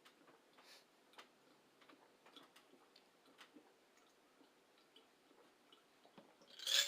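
Faint, irregular light clicks, scattered and unevenly spaced, then a short, louder rush of noise near the end.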